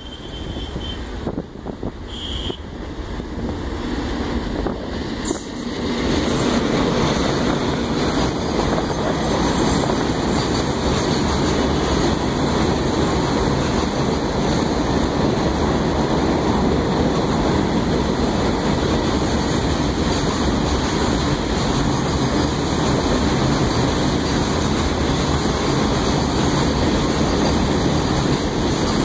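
Indian Railways WAG-7 electric locomotive hauling a freight train of BOXN open wagons, growing louder as it approaches and passes about six seconds in. After that comes the steady rumble of the wagons rolling past on the rails.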